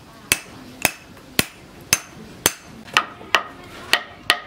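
Hand hammer striking a steel post anvil at an even pace, about two blows a second, each with a short metallic ring. About three seconds in, the blows change to an uneven run of taps with a different ring, as a hammer works on a wooden handle over a wooden beam.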